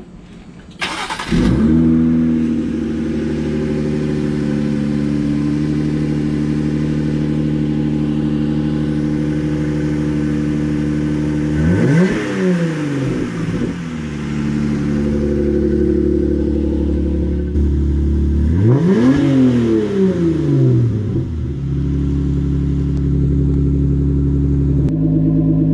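Jeep Gladiator's V6 cold-starting through a newly fitted Rough Country dual cat-back exhaust: it catches about a second in, flares up and settles into a steady idle. It is then revved twice, briefly, once about halfway through and again a few seconds later, each time dropping back to idle.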